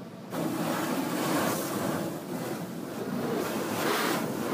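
Car-wash water spray pelting the car's windshield and body, heard from inside the cabin as a steady rushing hiss. It comes in suddenly about a third of a second in and grows louder near the end.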